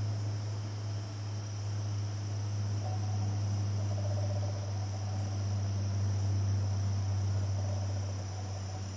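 Crickets chirring steadily over a constant low hum, with a lower trill joining for a few seconds in the middle.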